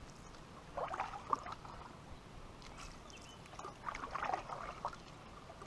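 Canoe paddle strokes in calm water: two strokes about three seconds apart, each a brief cluster of splashing.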